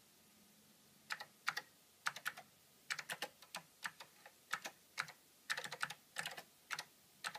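Keystrokes on an Apple IIc's built-in keyboard as a line of BASIC is typed: irregular clicks, a few a second, starting about a second in.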